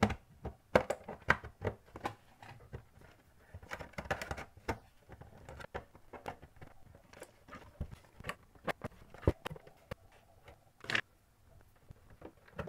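A plastic pry tool working along the seam of a TiVo Edge's plastic case to pop its clips: irregular clicks, taps and short scrapes of plastic on plastic.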